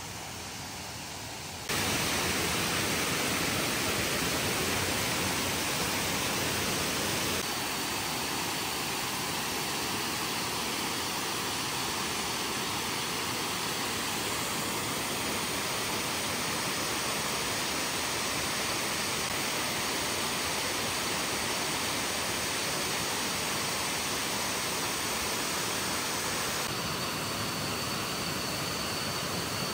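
Steady rush of falling water from tiered waterfall cascades, a dense, even wash of noise that steps abruptly in level and tone a few times.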